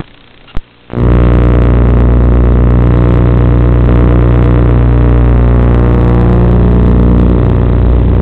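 FPV quadcopter's motors running: a loud, steady buzz that starts abruptly about a second in and cuts off suddenly near the end, as the throttle is dropped.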